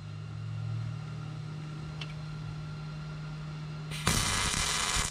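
Arc welder striking a short tack weld on steel plate: a burst of arc noise about four seconds in, lasting about a second and stopping abruptly, over a steady low hum.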